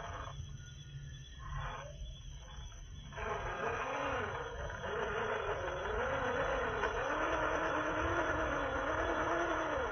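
Electric motor and gear drive of a small MN-series 1/12-scale RC crawler whining, its pitch rising and falling with the throttle, mostly from about three seconds in.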